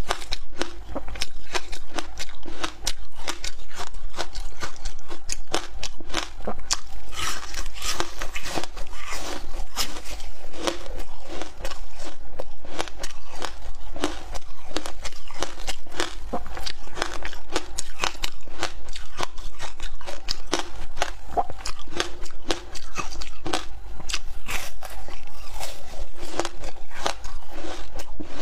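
A person biting and chewing a thin sheet of frozen ice: a dense, almost unbroken stream of sharp crunches and cracks as the ice breaks between the teeth.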